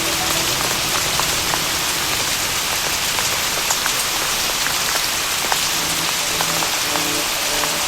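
Steady rain falling on a surface, a dense even hiss, with scattered sharp crackles of a wood fire through it.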